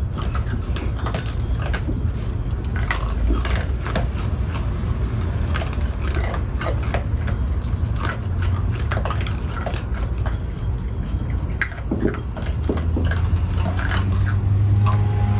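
Raccoons eating dry kibble from a bowl: irregular crunching and clicking, over a steady low hum that grows louder near the end.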